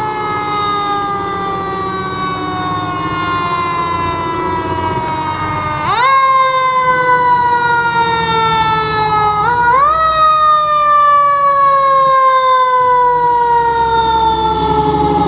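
Fire rescue truck's mechanical siren, its wail slowly falling in pitch as it coasts down, spun back up sharply about six seconds in and again around ten seconds in, then coasting down again. A truck engine rumbles low underneath.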